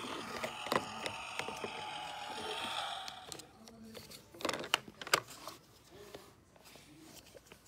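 Fisher-Price Talking Zeg toy truck's little speaker playing electronic tones that trail off over the first three seconds. After that come scattered light knocks and clicks of the plastic toy being handled and set on the floor.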